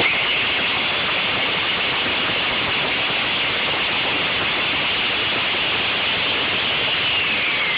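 Countertop blender switched on, its motor running at a steady loud whir while it grinds up an old flip phone in the jar. A faint whine drops in pitch near the end.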